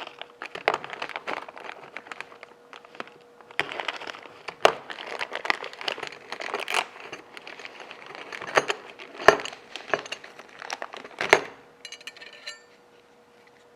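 Metal dust-collector bracket parts being handled and taken out: a run of rustling and clicking with several sharp metal knocks a few seconds apart, then a brief ringing clatter near the end. A faint steady hum runs underneath.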